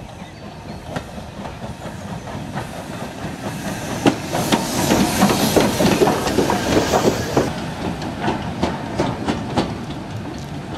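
BR Standard Class 4 tank steam locomotive passing close by, its steam hissing and its wheels clattering over the rail joints. The sound is loudest from about four to seven and a half seconds in, then eases to a steady run of wheel clicks as it moves on.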